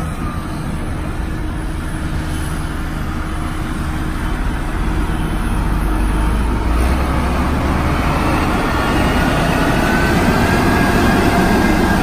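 Diesel engine of a 6122E single-drum padfoot road roller running with a steady low rumble, growing gradually louder as the machine comes close.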